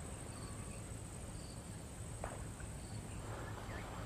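Insects trilling steadily at a high pitch in the grass, with faint short chirps about once a second over a low rumble. A soft click about two seconds in.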